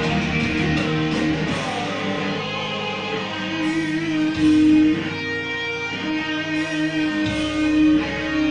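Electric guitar being played, strummed chords with held notes and a couple of louder accents about halfway through and near the end, recorded through a THL T6 Pro smartphone's built-in microphone.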